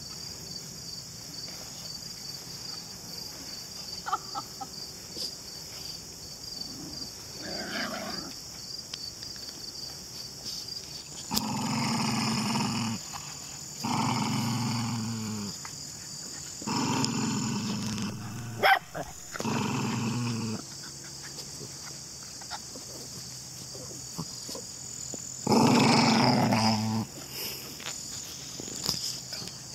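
Small black-and-white Chihuahua-mix dog snarling with bared teeth: about five growls of a second or two each, beginning about eleven seconds in, the loudest near the end. A steady chorus of crickets runs underneath.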